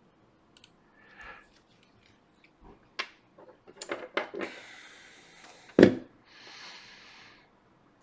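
Hands working on a wooden workbench: scattered light clicks and taps as the iPad logic board and multimeter probes are handled, with one louder knock near the end and two short stretches of soft hiss.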